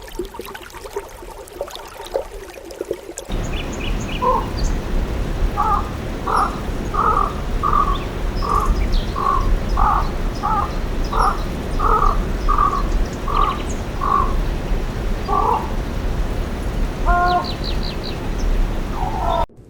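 Short pitched animal calls repeating evenly, about twice a second, over a steady low background rumble. A different sound plays for the first three seconds, and a few other calls come near the end.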